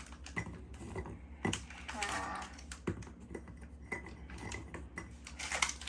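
Cookies being put into a cookie jar from their pack: a scatter of small irregular clicks and taps as they knock against the jar and each other.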